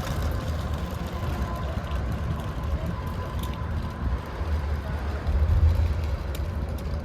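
An uneven low rumble that swells and fades throughout, loudest a little past the middle, with a faint steady high tone underneath.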